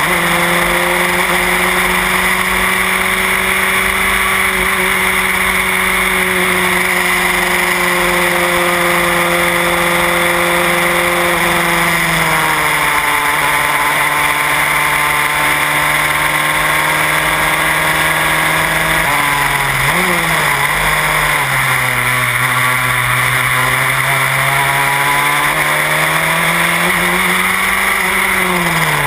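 Onboard sound of a Van Diemen Formula Renault single-seater's engine running hard at high revs. The pitch holds steady, steps down about twelve seconds in, drops with a few quick dips around twenty seconds in as the car changes down, then climbs steadily under acceleration before falling again near the end, over constant wind noise.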